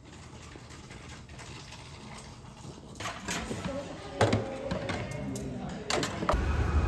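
Quiet room tone, then cafeteria clatter with voices murmuring in the background and a few sharp clicks of dishes or a tray; near the end it cuts to a steady low rumble of street traffic.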